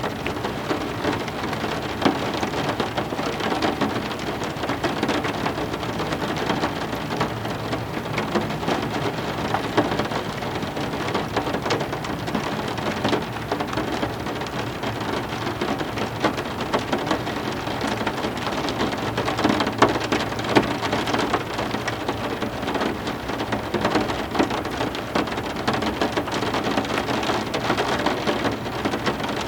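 Steady heavy rain with a dense patter of drops hitting a surface.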